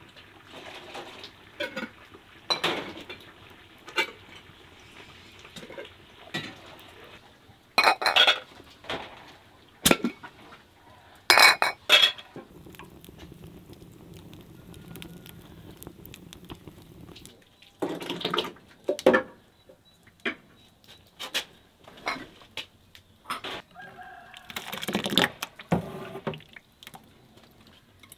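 Pots, glass jars and utensils clinking and knocking during home canning, with a rooster crowing now and then.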